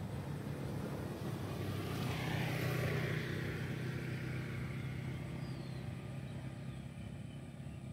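A motor vehicle passes by: a steady engine hum swells about two to three seconds in, drops in pitch as it goes past, then fades.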